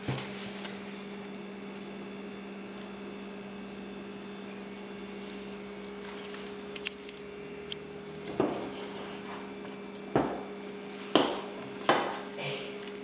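Handling noise from unpacking a pair of rubber-soled barefoot shoes, over a steady low electrical hum. A few light clicks come partway through, then four sharp knocks about a second apart in the second half as the shoes are handled and set against the tabletop.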